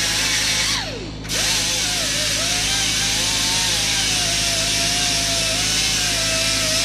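Power tool running with a steady wavering whine; about a second in its pitch slides down and the sound dips briefly, then it comes back up to speed and keeps running.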